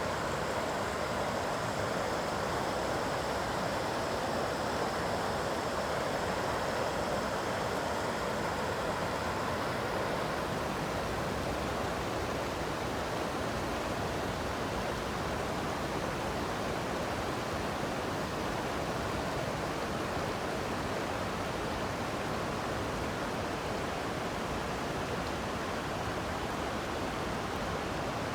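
Floodwater rushing steadily over a road, a continuous even roar of moving water.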